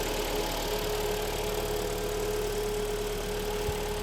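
A Kia Sportage 3's freshly overhauled engine idling steadily just after its first start, with a steady whine. The mechanics put the whine down to the cold automatic gearbox humming.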